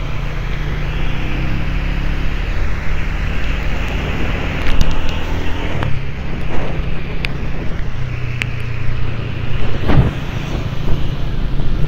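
Motorcycle engine running steadily while riding, with road and traffic noise on a wet road.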